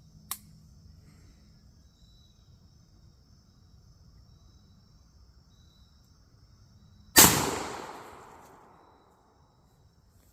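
A Rossi Tuffy .410 single-shot youth shotgun fires one shot about seven seconds in, the report dying away over about a second and a half. A short sharp click comes just before, near the start.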